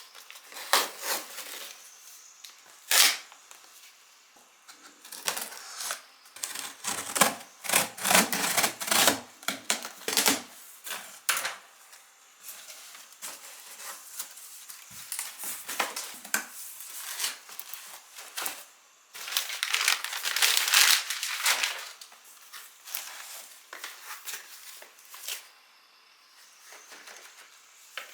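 A package being unboxed by hand: scissors cutting through tape, with cardboard and plastic packaging tearing, crinkling and being handled in many sharp clicks and taps, and a longer stretch of rustling about two-thirds of the way through.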